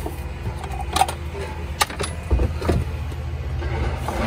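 A steady low mechanical hum, with a few sharp clicks and knocks in the first three seconds.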